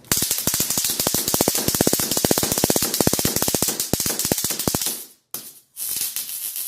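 Handheld stun gun arcing between its electrodes, a fast crackling train of sharp snaps. It runs for about five seconds, breaks off briefly, gives a short burst, then starts again near the end.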